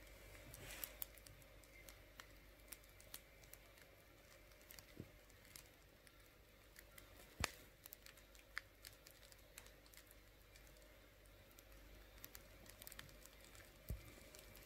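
Freshly baked baguette crusts crackling faintly as they cool, the bread "talking": scattered tiny ticks and crisp pops, with one louder pop about halfway through.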